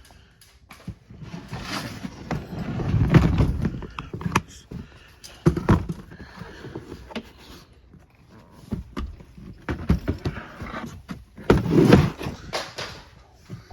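A cardboard storage box being shifted across an attic floor: a long scrape about two seconds in, then footsteps and a series of knocks and thumps, loudest near the end.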